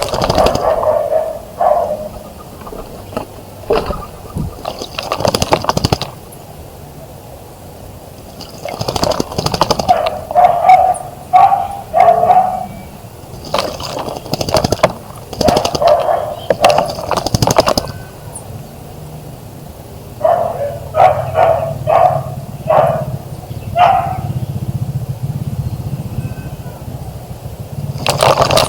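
An animal calling in short, quickly repeated bursts, several clusters of them. They are mixed with sharp splashes and flicks of water at the bird bath. A low engine hum builds near the end.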